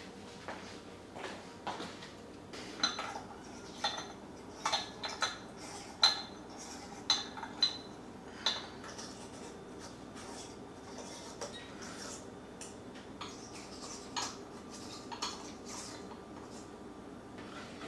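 Glass light bulbs and glass shades of a ceiling light fixture clinking and tapping as bulbs are unscrewed and screwed in by hand: a quick run of sharp, ringing clinks for several seconds, then a few scattered ones.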